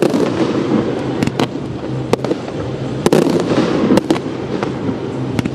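Fireworks display: aerial shells bursting with several sharp bangs at irregular intervals, over a continuous crackling din between them.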